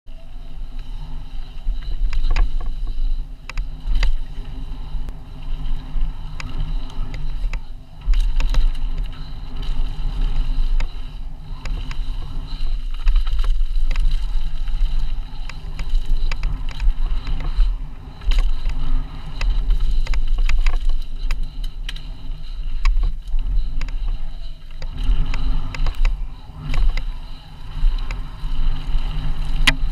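Mountain bike ridden at speed down a dirt trail, heard through an action camera's microphone: a heavy, buffeting wind rumble over tyre noise, with frequent clicks, knocks and rattles from the bike as it crosses bumps and roots.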